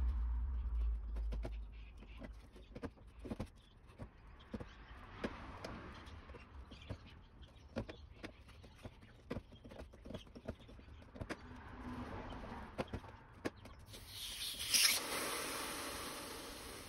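Gloved hands working on the wiring and fittings inside an air-conditioner outdoor unit: scattered small clicks and knocks. Near the end a hiss swells and then slowly fades.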